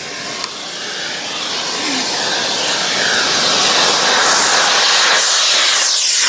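Radio-controlled model jet's engine: a loud rushing hiss that grows steadily louder over the first three seconds and then holds, with a falling sweep near the end.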